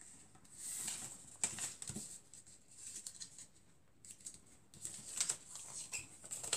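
A sheet of A4 paper rustling and crinkling as hands fold and crease a paper aeroplane. The rustles come in two spells, around the first second and again through the last two seconds.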